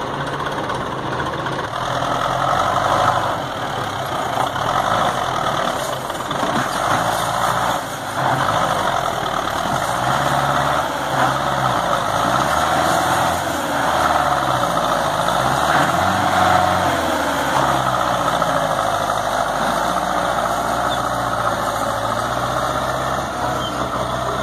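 Belarus 510 tractor's diesel engine running hard under heavy load, towing a trailer loaded with sand through soft ground; its steady note wavers a little up and down.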